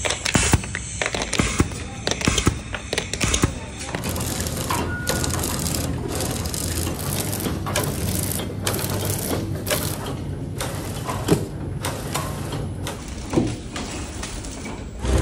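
Sharp, irregular clicks and clacks from a small press and parts being handled for the first few seconds. Then a horizontal flow-wrap packaging machine runs steadily with a fast, even mechanical clatter.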